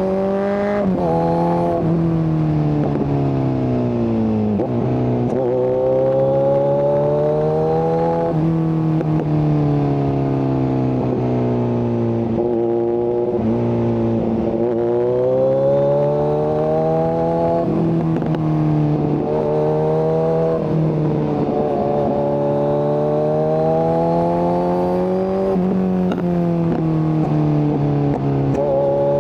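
Kawasaki Z900's inline-four engine through an SC-Project exhaust with the catalytic converter removed, ridden hard: the exhaust note climbs and falls repeatedly, with several sudden drops in pitch as it shifts gear, and slower falls as the throttle is rolled off.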